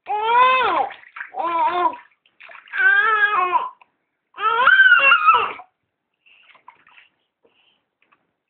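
A baby babbling in four drawn-out, high-pitched vocal sounds about a second each, with rising and falling pitch, during a bath. Faint water sounds follow.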